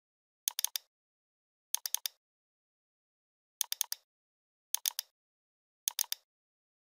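Computer mouse double-clicks, five in all about a second or two apart, each a quick cluster of sharp clicks with dead silence between, as folders are opened one after another.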